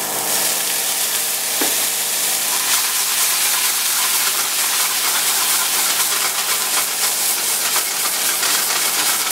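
Beef steak searing in a hot frying pan, a steady sizzle and hiss as liquid poured into the pan boils off in a thick cloud of steam.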